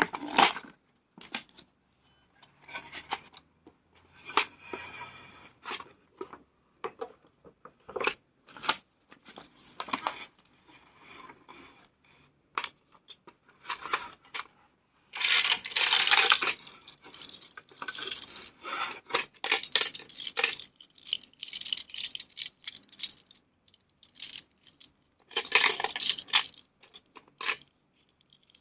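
Plastic pieces and packaging of a toy fishing game being handled: irregular clicks and clatters with stretches of rustling. The longest, loudest rustle comes about halfway through, and another near the end.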